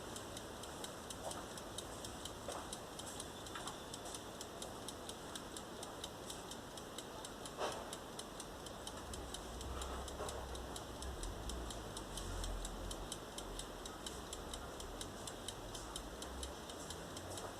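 Faint, quick, even ticking, with one louder click about seven and a half seconds in and a low rumble partway through.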